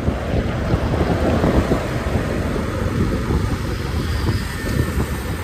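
Wind buffeting the microphone on a moving Yamaha motorcycle at about 40 km/h, with the bike's engine and road noise underneath.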